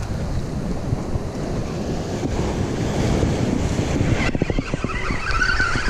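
Wind buffeting the microphone over surf washing against jetty rocks. About four seconds in, as a spinning fishing reel is cranked, there is a quick run of clicks and then a steady high whine.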